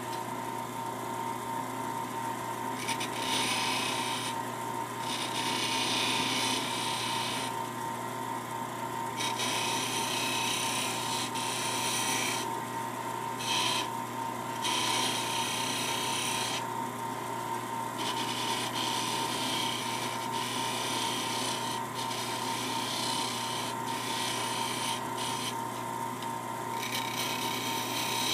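A small lathe runs with a steady hum while a steel hand tool scrapes the spinning rosewood piece with its silver wire inlay, in passes of a second or two that start and stop again and again.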